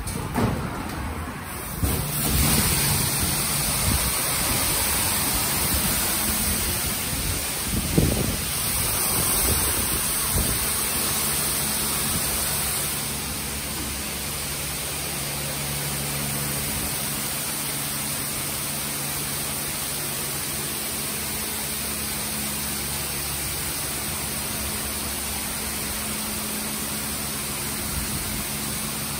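Istobal M'NEX 22 rollover car wash gantry spraying the car: a steady hiss of water spray over a low pump hum, a little louder in the first dozen seconds.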